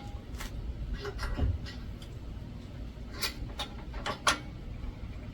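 Scattered clicks and knocks of a barrel vise being clamped down to a hydraulic press with C-clamps, over a low steady hum.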